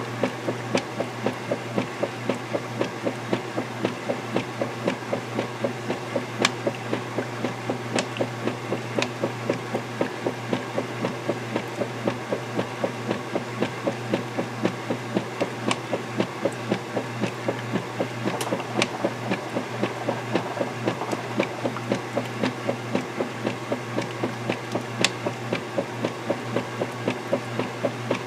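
Vintage KitchenAid direct-drive top-load washer agitating a load in water: a steady motor hum with a rhythmic knock and slosh about three times a second as the finned agitator swings back and forth. A few sharp ticks sound now and then.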